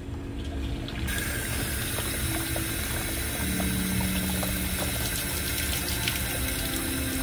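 Water and carbon filter media pouring from a PVC discharge pipe into a plastic bucket: a steady rushing hiss that starts about a second in, as water fed into the softener tank pushes the carbon up and out.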